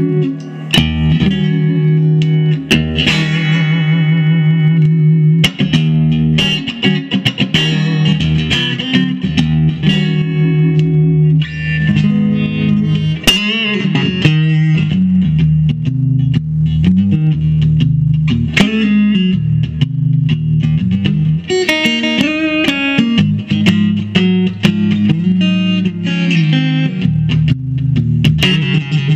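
1965 Fender Stratocaster electric guitar played solo: picked single-note lines and chords, with wavering vibrato on many held notes.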